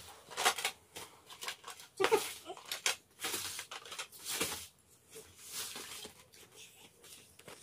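Ceramic plates and salad dishes being set down one by one on a plastic-covered floor cloth: light clinks and knocks, with the plastic sheet crinkling between them.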